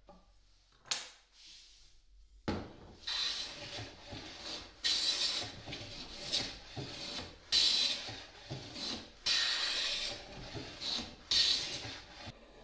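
Metal bench plane taking shavings along the edge of a white oak board: a run of about eight rasping strokes, each starting sharply and lasting up to a second. One sharp knock comes about a second in, before the strokes begin.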